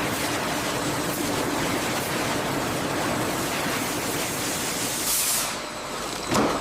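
Steady rushing hiss of a food processing line, with a brief louder hiss about five seconds in and a short sharp swoosh just before the end.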